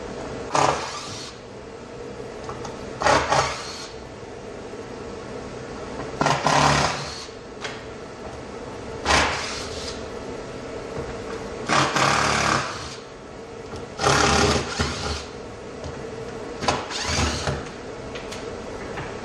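Power drill-driver running in short bursts, about seven times, backing screws out of the glued-up MDF. A steady hum runs underneath.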